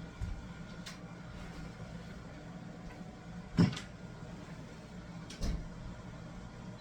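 Costway 10,000 BTU portable air conditioner running with a steady low hum, with a few short knocks and clunks of handling over it, the loudest about halfway through and a quick double knock a couple of seconds later.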